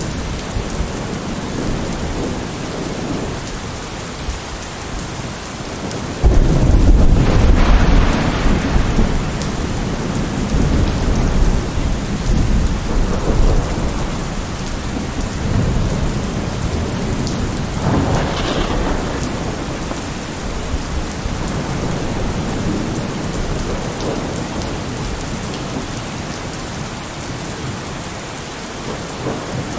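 Steady heavy rain with thunder: a sudden loud, deep thunderclap about six seconds in that rumbles on for several seconds, and a second, sharper peal a little past the middle that fades back into the rain.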